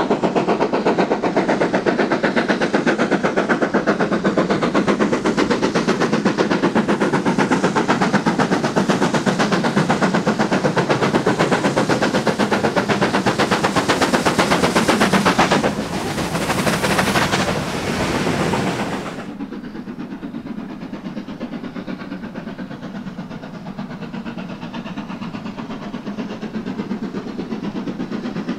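Steam locomotive 70000 Britannia, a BR Standard Class 7 Pacific, working hard up a steep bank, its exhaust beats coming fast and loud. About 16 seconds in there is a brief rush of hiss as it passes close, then the sound drops to the quieter rolling and clatter of the coaches going by.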